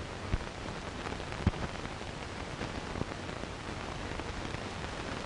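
Steady hiss with scattered clicks and pops from a worn early sound-film soundtrack; the loudest pop comes about a second and a half in.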